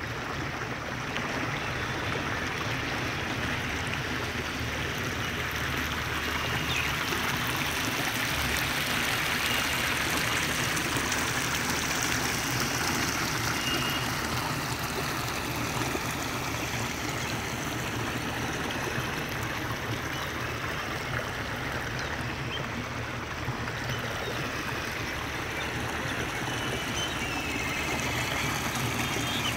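Steady rush of flowing water from a stream, unchanging throughout.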